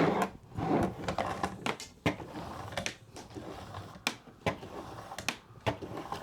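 Irregular clicking and clattering from an Uhlmann fencing reel being handled and wound another turn as its new spring is tensioned, with a few sharper knocks, the loudest about two and four seconds in.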